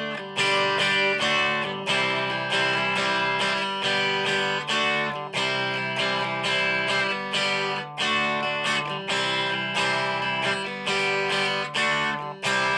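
Electric guitar with both pickups selected, played through a Marshall DSL1 amp on its Classic Gain channel. It strums chords, a fresh strum roughly every second, and a last chord is struck near the end and left ringing.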